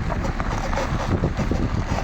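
BMW E53 X5's rear suspension squeaking and creaking in short irregular strokes, over a steady low rumble.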